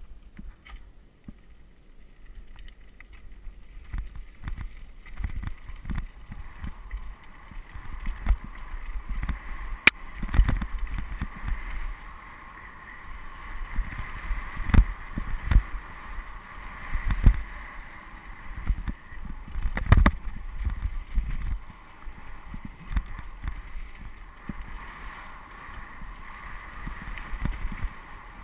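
Mountain bike rolling fast down a rocky dirt trail: tyre noise on the gravel with constant rattle and irregular knocks and thumps as the wheels hit rocks and bumps, a few sharp hard hits among them, with wind rumbling on the microphone.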